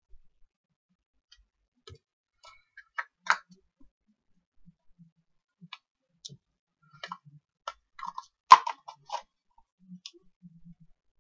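Painted wooden matryoshka dolls clicking and knocking as they are handled, their hollow halves opened, fitted together and set down: scattered light clicks, the sharpest about eight and a half seconds in.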